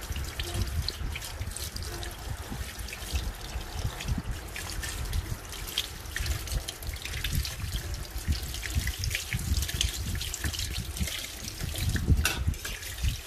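Water trickling and splashing, with many small scattered clicks and knocks.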